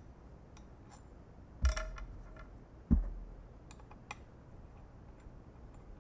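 A metallic clank with a short ring about a second and a half in, then a dull thump just over a second later, with faint small clicks of metal parts and tools being handled around them.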